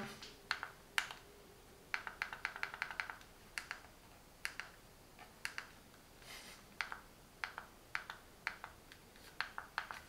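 Faint clicks of menu scrolling on a Mi Box controlled with a SofaBaton X1 remote: single clicks and quick runs of several clicks in a row.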